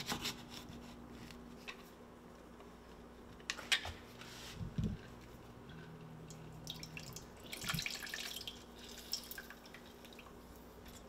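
Lemon juice dripping from a hand-held lemon squeezer into a frying pan, with scattered small clicks and taps from the squeezer and a faint steady hum underneath.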